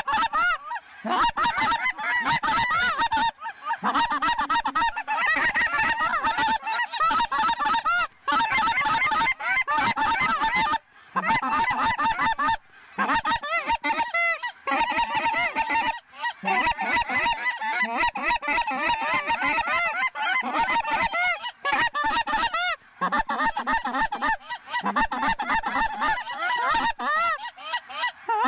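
Large flock of lesser Canada geese calling, a dense mass of many overlapping honks and clucks with a few brief breaks.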